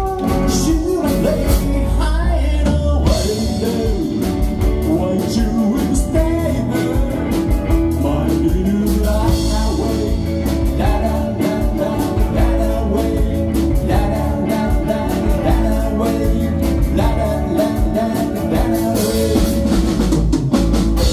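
Live band playing a song: a male lead vocal over electric guitars, keyboard and a drum kit keeping a steady beat.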